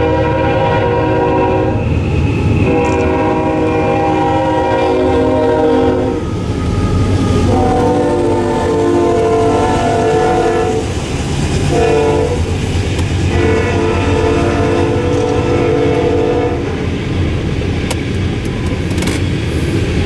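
Freight diesel locomotive's air horn sounding a series of blasts, long, long, short, long, the pattern of the grade-crossing signal, over the steady low rumble of the locomotive and the coal train's wheels.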